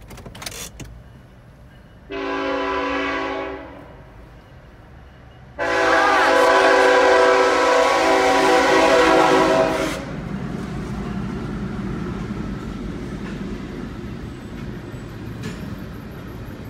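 Diesel freight locomotive's air horn blowing for a grade crossing: a blast of about a second and a half, then a long blast of about four seconds. After the horn stops, the steady low rumble of the container train rolling across the crossing.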